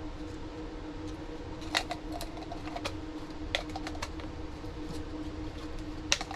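A few sharp plastic clicks and taps as the filter and housing of a cordless mini vacuum are handled and fitted together, over a steady hum.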